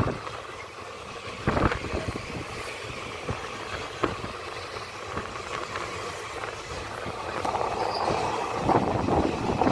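Indian Railways passenger coach running at speed: a steady rumble of wheels on rails with a few sharp knocks, growing louder near the end.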